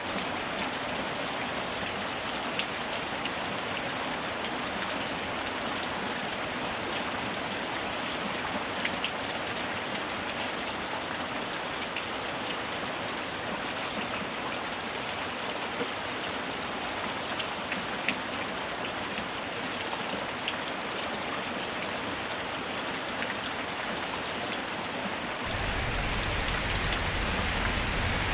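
Steady rain falling on a surface, an even hiss with scattered sharp drop ticks. About 25 seconds in a deeper low rumble joins and the rain gets slightly louder.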